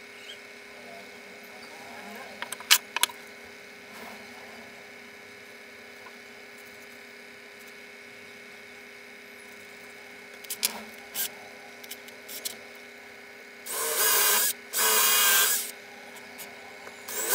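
Wooden boards being handled and set down on a workbench, with a few sharp clacks, then a cordless drill runs in two bursts of about a second each near the end.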